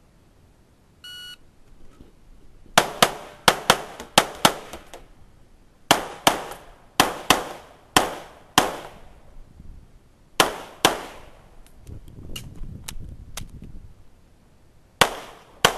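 A shot timer gives one short electronic beep, the start signal. About two seconds later a red-dot handgun fires in quick runs of shots, mostly in pairs, with short pauses between the runs.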